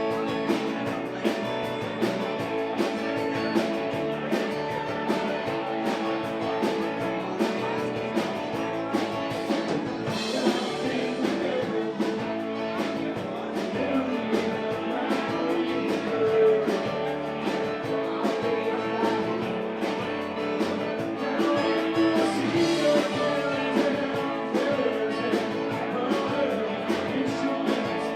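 Live rock band playing: guitars over a steady drum beat, with a singer.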